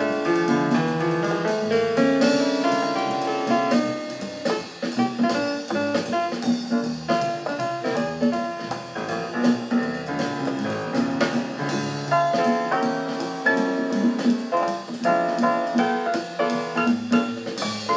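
Jazz with piano and drums, played from a vinyl record on the RetroLife UD006 all-in-one turntable through its pair of bookshelf speakers.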